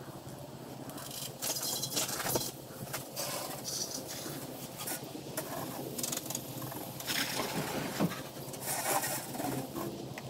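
Soft-wash solution sprayed from a wand onto a slate roof, hissing and pattering in irregular bursts over a steady low hum.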